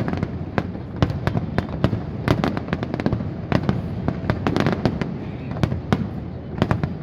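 Fireworks going off: many sharp, irregular bangs and crackles, several a second, over a steady low rumble.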